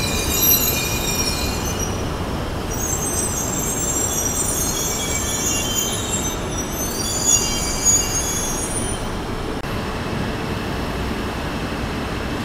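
Shinkansen train moving slowly into a station: several high shrill wheel and brake squeals over a steady rumble, with the squealing stopping about nine and a half seconds in.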